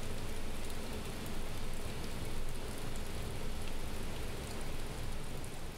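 Steady rushing of water flowing out of a small hydroelectric plant's turbines, an even hiss without breaks.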